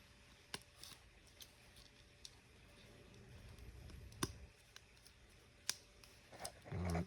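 Scattered small, sharp clicks of tools and small phone parts being handled during reassembly, a few seconds apart, with a short low thump near the end.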